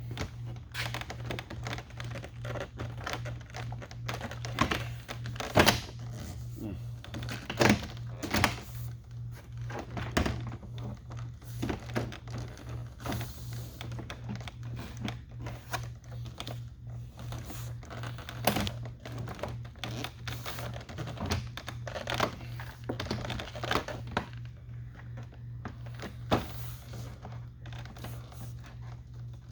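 Irregular plastic clicks, taps and knocks of a truck's door trim panel being handled and pressed against the door, with a few sharper knocks, over a steady low hum.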